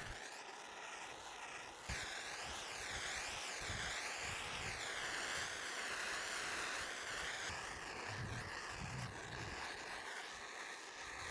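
Handheld butane torch flame hissing steadily as it scorches cedar fence-board wood. The hiss sweeps up and down in tone as the torch moves.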